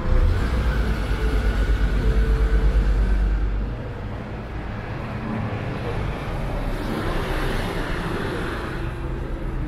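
City street traffic: a vehicle's low engine rumble close by for about the first four seconds, then the rush of a passing vehicle swells and fades near the end.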